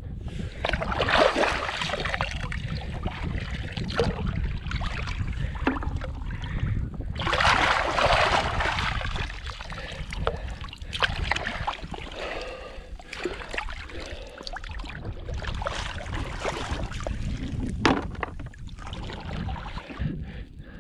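Shallow seawater splashing and sloshing in several bursts as hands rake through the water and sand for cockles, with a few sharp clicks. Wind rumbles on the microphone underneath.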